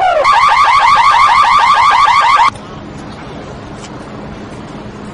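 Car alarm sounding in a fast repeating warble that switches to a quicker, higher-pitched chirp pattern about a quarter second in. It cuts off suddenly about halfway through, leaving a low steady hum.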